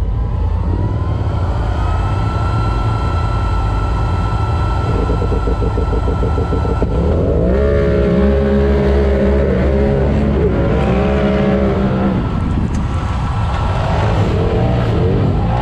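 Side-by-side UTV racing engines running hard. A high whine rises in pitch over the first couple of seconds and then holds, and later the engine pitch rises and falls repeatedly with throttle.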